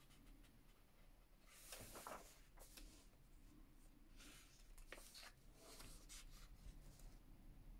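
Faint rustling of paper as colouring-book pages are lifted and turned, a few soft swishes over near silence.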